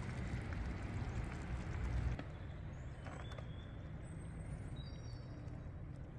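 Low steady rumble with a few light knocks, its character changing about two seconds in. Faint bird chirps come through in the second half.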